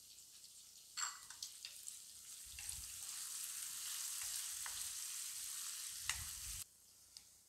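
Chopped tomatoes and onions sizzling in hot oil in a pan as a wooden spatula stirs them, with the spatula knocking and scraping against the pan. The sizzle swells from about two and a half seconds in and cuts off suddenly near the end.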